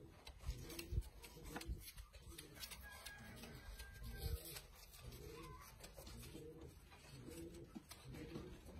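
Domestic pigeons cooing softly in repeated low phrases, with a few short knocks in between.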